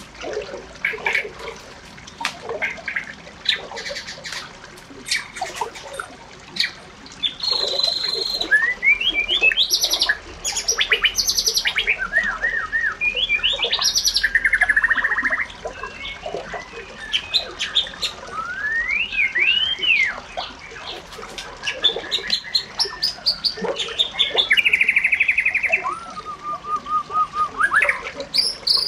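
Birdsong and calls: a varied run of whistled notes, rising and falling glides and fast trills, with short pauses between phrases.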